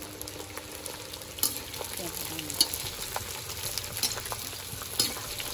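Metal spatula stirring and scraping pieces of meat in a wok, with a steady sizzle of frying. Sharp clinks of the spatula against the pan come a few times, the loudest about halfway through.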